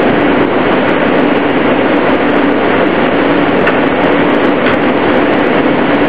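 Running noise inside an R160A-2 New York subway car under way: a loud, steady rush of wheels and motors, with a faint hum that comes and goes.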